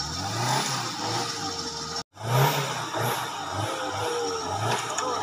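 Suzuki Jimny's small engine revving in repeated surges under load as the 4x4 climbs a steep rocky slope. The sound drops out completely for a moment about two seconds in, then comes back with a loud rev.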